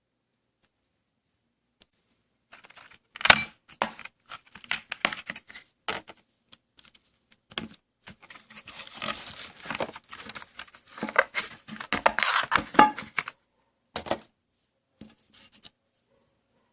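Packaging being handled: irregular crinkling, tearing and rustling with sharp clicks. It starts a couple of seconds in and breaks off near the end.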